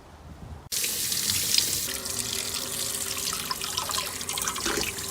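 Water running from a tap into a sink, starting abruptly under a second in.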